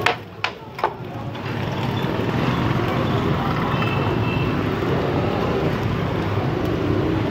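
A metal spatula clacks three times against a flat steel griddle, then a steady low rumble with a hiss carries on.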